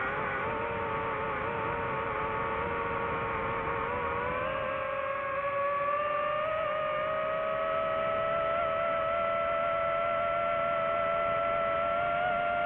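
DJI FPV quadcopter's motors and propellers whining steadily as several close tones. The pitch rises about four to six seconds in as throttle increases, then holds level.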